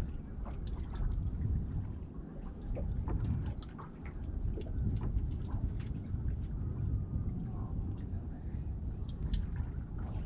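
Wind rumbling on the microphone and water lapping against a small boat's hull, with scattered light clicks and knocks.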